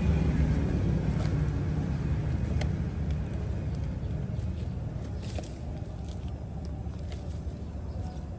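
Low steady engine-like rumble that grows fainter about halfway through, with a few faint light clicks.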